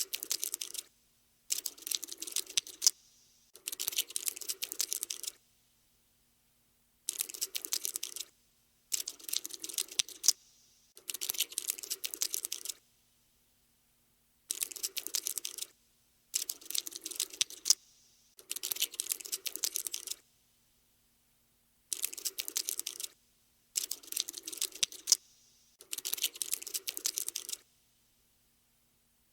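A cockroach-scuttling sound effect: rapid, scratchy clicking in about a dozen bursts of one to two seconds each, with brief silences between them.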